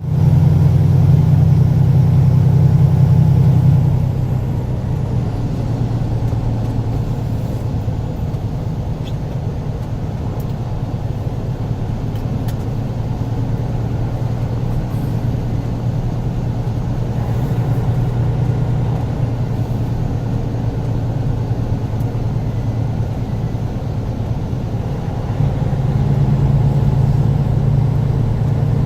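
A truck's engine running steadily as it drives, with road noise underneath. It is louder at first, eases about four seconds in, and pulls harder again near the end.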